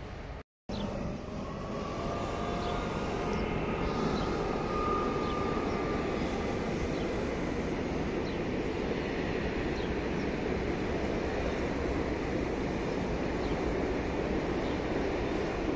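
Passenger train of Ouigo-liveried coaches rolling past: a steady rumble of wheels on the track. A faint whine slides in pitch from about one to five seconds in.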